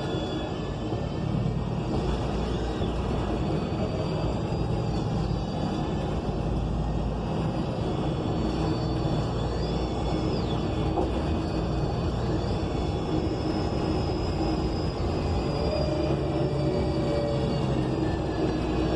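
Cabin sound of an ENC Axess city bus under way: its Cummins Westport L9N natural-gas engine and Voith automatic transmission running, with steady road rumble and faint high whines that rise and fall.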